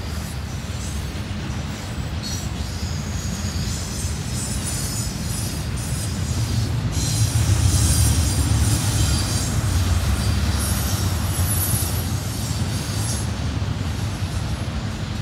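Double-stack intermodal freight train rolling past: a steady low rumble of wheels on rail, with high-pitched wheel squeal coming and going over it, loudest around the middle.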